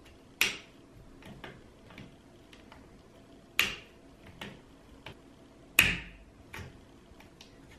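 Small clicks and taps of rifle parts being handled as a fitting is unscrewed and worked off the front of a Benjamin Armada air rifle's forearm: three sharper clicks, about half a second in, at three and a half seconds and near six seconds, with fainter ticks between.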